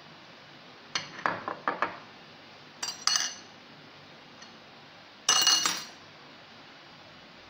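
Metal cutlery clinking against a ceramic plate and glass serving bowls. A quick run of taps comes about a second in, two ringing clinks just before three seconds, and a louder ringing clink at about five seconds.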